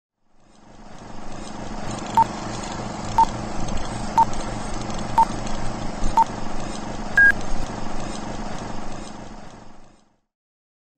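A series of electronic beeps: five short beeps at the same pitch about a second apart, then one higher beep, over a steady hum and hiss that fades in and cuts off suddenly near the end.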